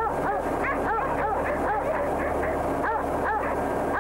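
Several dogs barking and yelping, many short rising-and-falling yelps a second overlapping each other, over a steady low hum.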